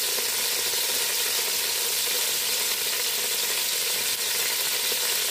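Chicken pieces frying in hot mustard oil in a pot, a steady sizzle.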